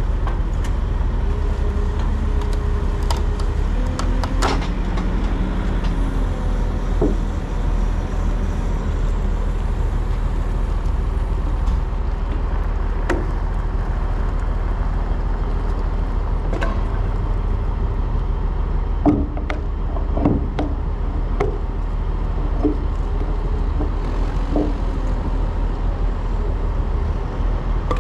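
Heavy truck's diesel engine running steadily with road noise, and scattered knocks and rattles, a few clustered about three to four seconds in and around nineteen to twenty seconds in.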